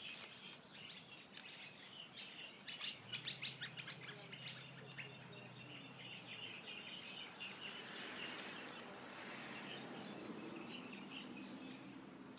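Small birds chirping and twittering faintly, with a cluster of sharper calls a few seconds in. A low steady hum runs for a few seconds in the middle.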